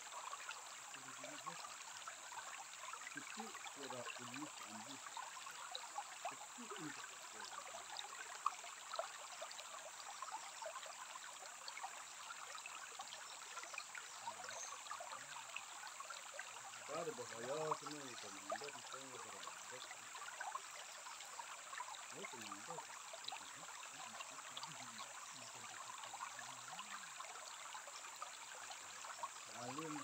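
Shallow stream trickling and burbling over stones and gravel in a steady, gentle wash, with faint human voices now and then.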